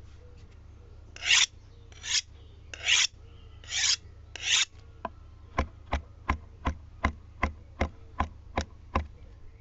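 Five rasping scrapes about a second apart, then a run of about ten short, sharp taps, evenly spaced at nearly three a second, over a low steady hum.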